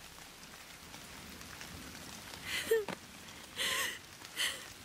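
Steady rain falling, with a few short crying sobs and gasps in the second half.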